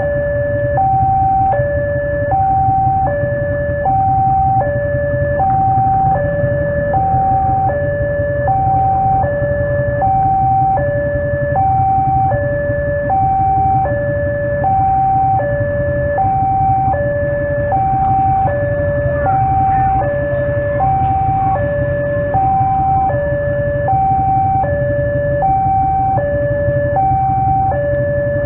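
Railway level-crossing warning alarm sounding a steady electronic two-tone, high-low, repeating about once a second: the signal that a train is approaching the crossing. A steady low rumble runs underneath.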